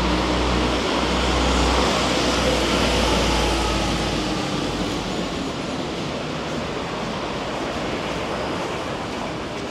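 A vehicle passing: a low rumble with a rushing noise over it, loudest in the first seconds, the rumble dropping away about four and a half seconds in.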